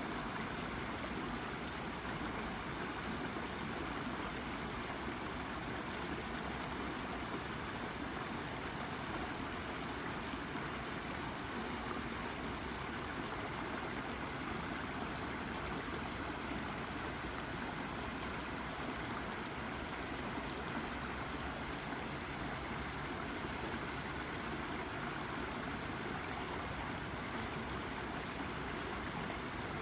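Shallow brook water babbling and trickling over a rock, a steady, unbroken rush.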